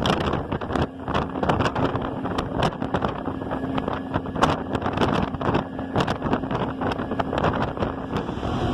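Ferry ride: the boat's engine runs under heavy wind buffeting on the microphone. A steady low hum comes in about a second in and fades near the end.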